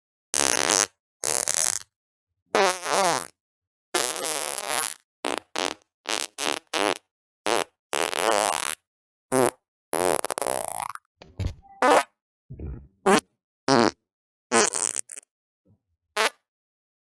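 A rapid string of separate fart sounds, about eighteen in all: some drawn out with a wavering, sputtering pitch, others short pops. Each one cuts off into dead silence before the next.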